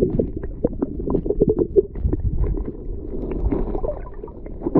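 Irregular water splashing and sloshing as a spoonbill (paddlefish) is let go back into the water, with wind rumbling on the microphone.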